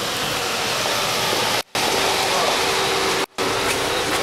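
Steady rain falling, heard under umbrellas as an even hiss. The sound cuts out completely twice for a split second.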